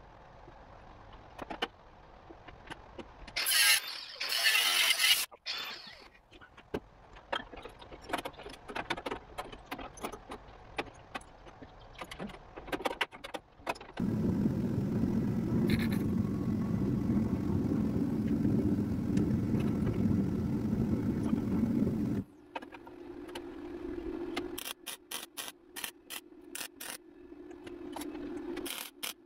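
Metal-shop work on a truck's front end: scattered tool clatter, a loud noisy burst about four seconds in, and a steady low machine hum for about eight seconds from the middle. Near the end comes a run of short crackling bursts in quick succession over a steady hum, typical of MIG tack welding on steel.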